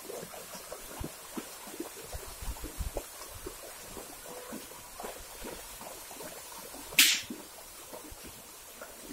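Cattle wading through a shallow muddy river, their hooves splashing and sloshing in the water in many small irregular splashes. One sharp, short hissing burst stands out late on.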